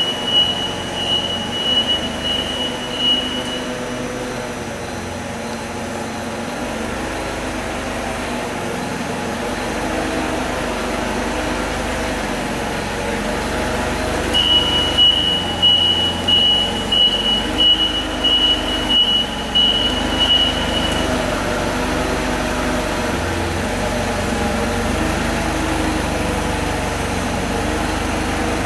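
An engine running steadily, with a high-pitched beeping alarm pulsing about one and a half times a second for the first few seconds and again in the middle.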